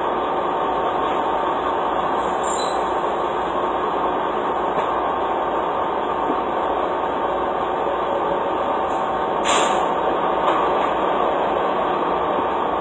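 Steady mechanical noise with no rhythm or pitch changes, and one sharp clap or slap about nine and a half seconds in.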